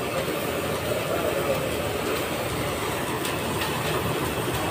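Steady mechanical running noise, with a few faint ticks about three seconds in.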